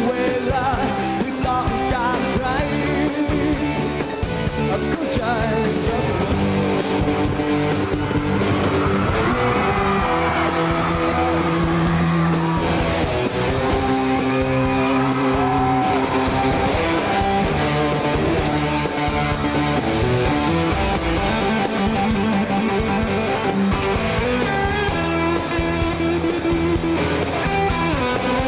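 Live rock music from a band, led by an electric guitar (a Fender Stratocaster) playing sustained, bending notes.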